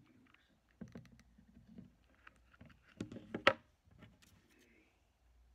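Hands working with a hot glue gun and paper cards on a wooden tabletop: faint taps and paper rustles, with a quick run of sharper clicks and knocks about three seconds in.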